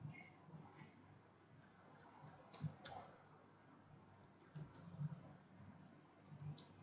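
Faint computer keyboard and mouse clicks. There are two sharp clicks about two and a half to three seconds in, a small cluster around four and a half to five seconds, and one more near the end.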